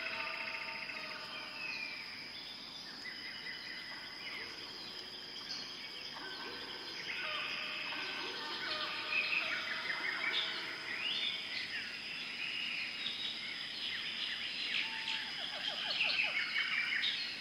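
Tropical forest ambience: many birds chirping, trilling and whistling at once over a steady high insect drone. The calls grow busier about halfway through.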